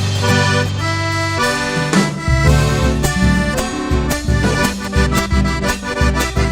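Live accordion-led folk dance music for gatos and cuecas. Held accordion chords open the passage, then a steady beat with bass comes in about two seconds in, under the accordion melody.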